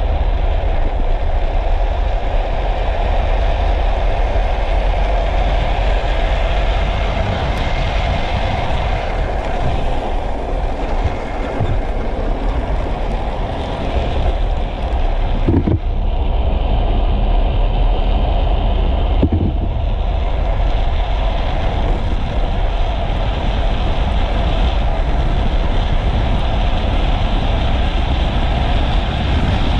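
Steady rushing road noise from a gravity speed trike coasting fast downhill: its wheels rolling on asphalt, with wind buffeting the microphone.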